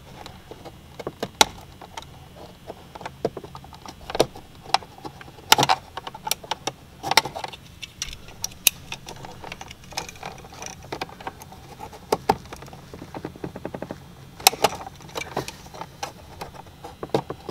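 Irregular small clicks, taps and scrapes of hands working a gauge into a plastic A-pillar gauge pod, with a few sharper knocks scattered through.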